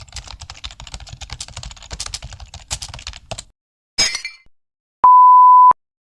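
Computer keyboard typing sound effect: rapid key clicks for about three and a half seconds. A short sharp sound follows, then a loud, steady, high censor bleep lasting under a second.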